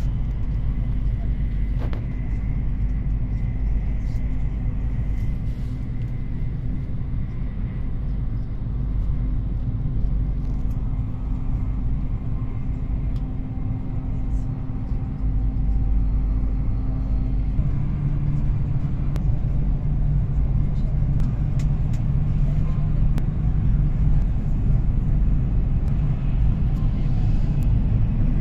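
Cabin noise inside a Whoosh high-speed electric train running at about 246 km/h: a steady low rumble with a faint humming tone. About two-thirds of the way through the hum shifts in pitch and the rumble grows slightly louder.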